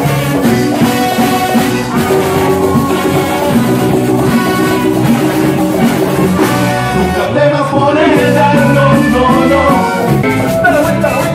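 Live cumbia band playing an upbeat instrumental passage, with accordion and brass over a steady dance beat.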